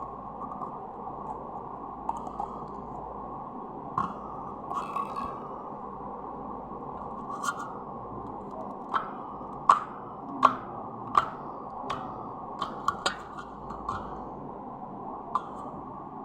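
Slime being squeezed and worked by hand, giving a scatter of sharp pops and clicks, most of them bunched between about 7 and 13 seconds in, over a steady hiss.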